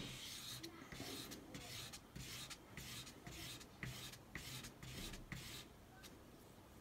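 Double-edged carving knife blade rubbed back and forth on wet sandpaper: a scraping stroke about two to three times a second, stopping near the end.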